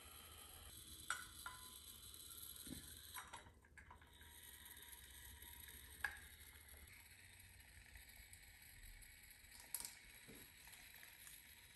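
Near silence with faint handling clicks of a brass clock case being turned in the hands; three sharper clicks stand out, about a second in, near the middle and near the end.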